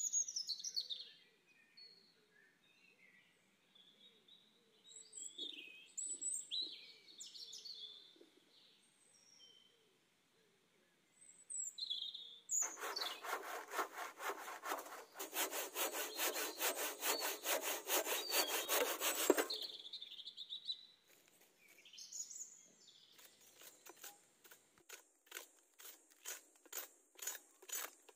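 Hand saw cutting dry wood: a run of rapid, rasping strokes lasting about seven seconds mid-way, then a slower, fainter run of about two strokes a second near the end that grows louder. Birds chirp in the pauses between.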